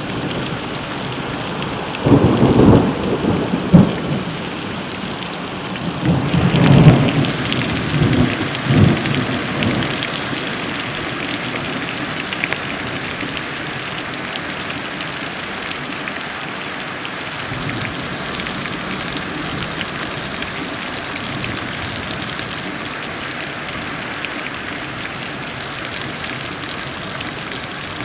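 Thunderstorm: steady rain falling throughout, with two rolls of thunder. The first comes about two seconds in; a longer one with several loud peaks follows about six seconds in.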